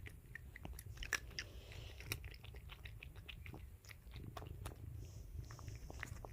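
A cat crunching dry treats: many quick, irregular crunches, faint against a low room hum.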